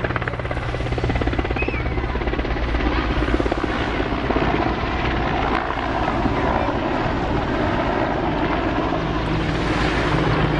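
Mil Mi-8-family twin-turbine helicopter flying low past, its main rotor beating rapidly and evenly over a steady low turbine drone.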